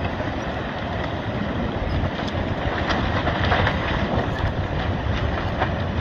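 Landslide rumbling as earth, trees and houses slide into the sea, with scattered cracks and snaps through a continuous deep roar.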